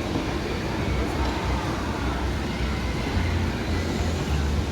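Steady outdoor background noise with an uneven low rumble throughout.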